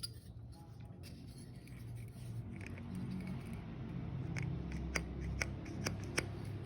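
Handling of an auto part and its packaging: rustling with a series of sharp clicks in the second half.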